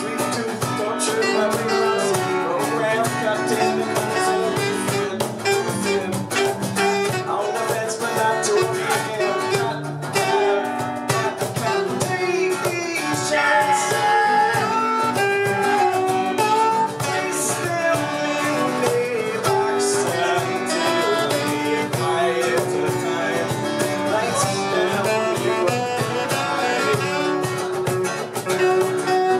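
Live band music led by a strummed acoustic guitar, with other instruments playing along.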